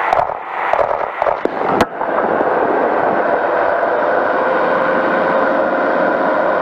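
Powered parachute's engine and propeller running steadily in flight, heard from the cart's seat. For the first two seconds wind buffets the microphone with irregular pops and crackles; from about two seconds in the engine drone is steady and even.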